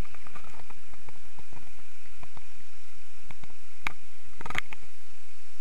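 Water heard from under the surface, through a camera's waterproof housing: a muffled steady rush from the waterfall with scattered clicks and knocks, the loudest few about four seconds in.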